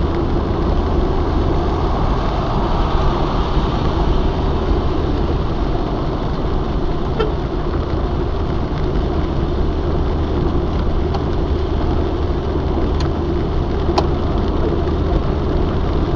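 Cabin noise of a Maruti 800 driving steadily on a rain-soaked highway: engine and tyre noise on the wet road under a deep, even rumble, with a few faint sharp ticks in the second half.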